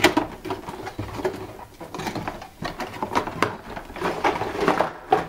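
A cardboard microphone box being opened by hand and a plastic tray slid out of it: irregular rubbing, scraping and light clicks.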